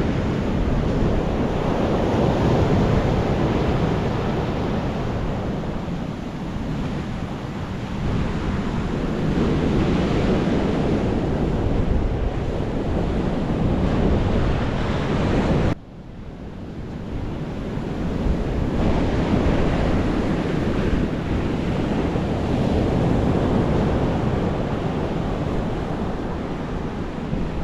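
Ocean surf breaking on a beach, with wind buffeting the microphone. The sound drops out abruptly about halfway through and builds back up.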